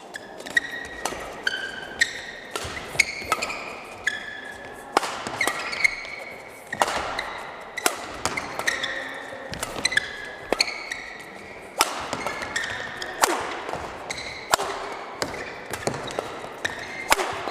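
Badminton doubles rally: rackets hitting the shuttlecock in a run of sharp smacks about every half second to a second, with short high squeaks of shoes on the court mat between the hits, echoing in a large hall.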